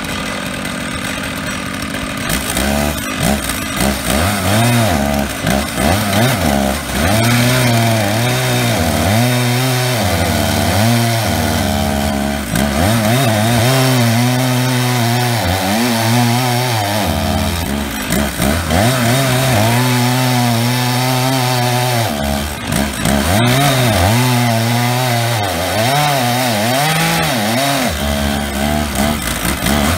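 Stihl 066 and 088 chainsaws running at full throttle at either end of an 87-inch double-ended bar on an Alaskan mill, ripping along an oak log. About two seconds in they get louder, and their engine pitch wavers up and down as the load in the cut changes.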